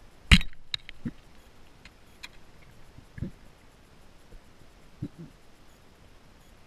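Underwater knocks: one loud sharp knock about a third of a second in, then three duller, softer knocks a couple of seconds apart, over faint scattered clicking.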